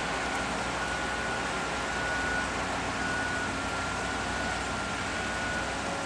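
Construction-site machinery running steadily: an even mechanical noise with a faint, constant high whine over it.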